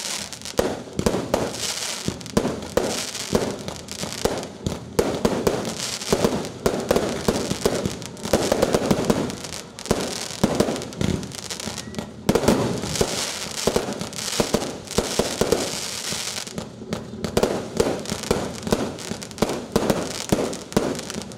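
Aerial fireworks going off in rapid succession: dense, overlapping bangs and crackling, with brief lulls about twelve seconds in and again around seventeen seconds.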